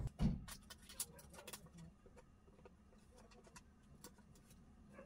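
Faint clicks and taps of small plastic and circuit-board parts being handled as a replacement LCD screen is set onto an instrument cluster's circuit board, with a soft thump just after the start and a few sharper clicks about a second in.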